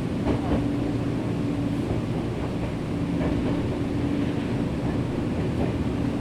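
Nankai 7100-series electric train running between stations, heard from inside the passenger car: a steady rumble of wheels on rail, with a low hum that fades in and out and a few faint knocks.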